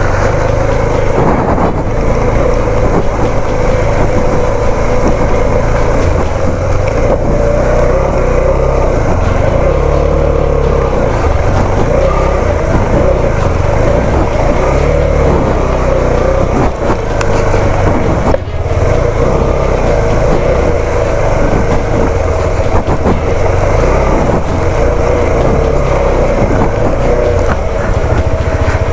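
Motorcycle running, with a steady rush of wind and road noise, dipping briefly twice about two-thirds of the way through.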